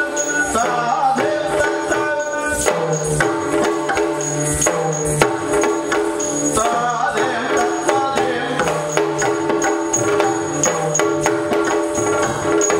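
Yakshagana dance music: a barrel drum beating over a steady held drone with a melodic line, and the jingling of the dancers' ankle bells as they step.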